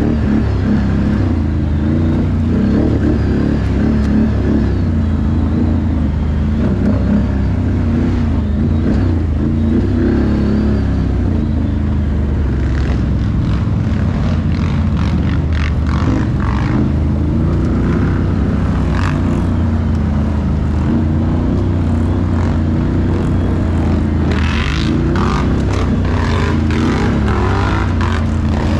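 Can-Am ATV engines running steadily during a ride, with a constant low engine hum. In the second half there are spells of rougher, crackling noise.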